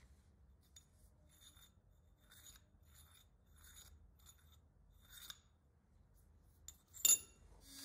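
Light, short scraping strokes on steel, about two a second, as of hand filing or abrasive work on the clamp; one louder, sharper scrape or clink about seven seconds in.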